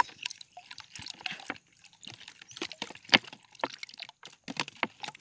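Water splashing and dripping as a plastic-bottle fish trap is handled at the water's surface: irregular small splashes and drips, the loudest about three seconds in.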